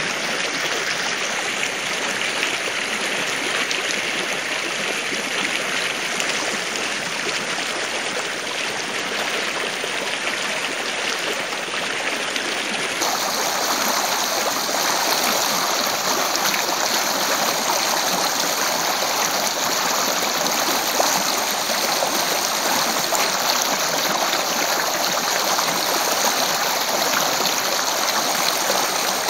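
Shallow rocky stream running steadily, water rushing and splashing over stones. It becomes louder and hissier about halfway through.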